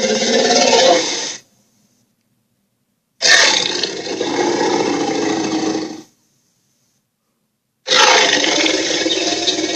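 Electronic dragon toy playing its recorded roaring sound effect through a small speaker, three times with silent gaps: one ending about a second and a half in, one from about three to six seconds, and one starting near eight seconds.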